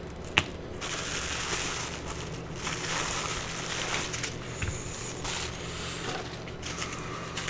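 Plastic bubble-wrap packaging crinkling and rustling as a camera battery grip is pulled out of it, with a single click about half a second in.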